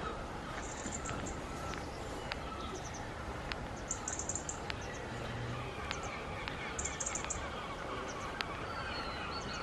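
Outdoor background with small birds giving short bursts of very high-pitched, rapid chirping, three times, and a few faint ticks in between.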